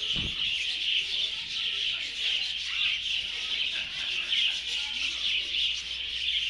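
A flock of many small birds chirping and chattering together without a break, a dense steady twittering.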